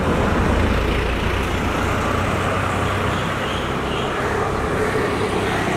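Street traffic: a motor vehicle's steady low rumble of engine and tyres, heaviest in the first second or two, then a steady traffic hum.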